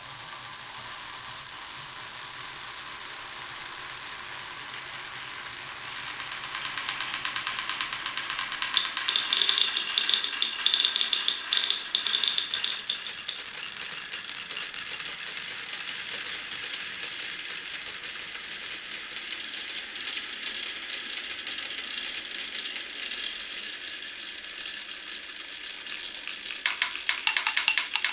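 Marbles rolling and clattering down a marble-run track. A continuous rolling rattle builds steadily, and from about nine seconds in there are dense rapid clicks of balls knocking along the track. Near the end another thick run of clicks comes in.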